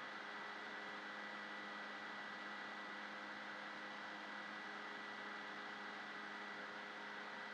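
Steady background hiss with an electrical hum and a thin high whine, unchanging throughout: the recording's own noise floor, with no other sound.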